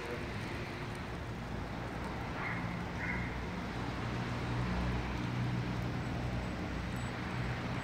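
Steady hiss of rain falling on a wet street, with the low hum of a car engine running underneath, louder from about two and a half seconds in until near the end.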